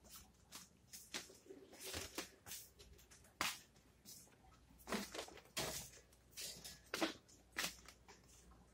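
Footsteps in slippers on a hard floor: irregular short scuffs and taps, roughly one or two a second.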